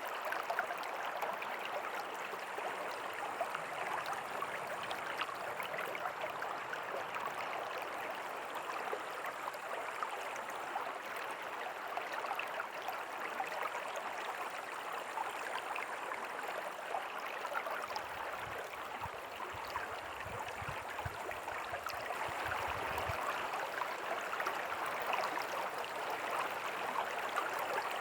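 A river flowing with a steady rush of water. A brief low rumble comes in about two-thirds of the way through.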